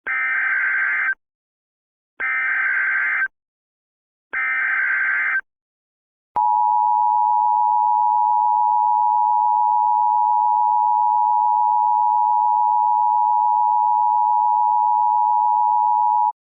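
Emergency Alert System header: three short bursts of SAME data tones, each about a second long and a second apart. The steady two-tone EAS attention signal follows, held for about ten seconds and then cut off. Together they mark the start of a new alert, here a tornado warning.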